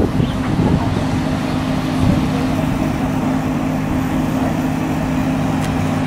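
Street ambience: a steady low mechanical hum over road traffic noise.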